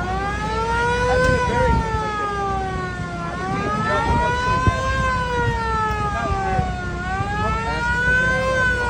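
A mini siren wailing: one tone that climbs and falls in pitch in slow, even sweeps, about three and a half seconds per cycle, peaking near one second, five seconds and eight and a half seconds in.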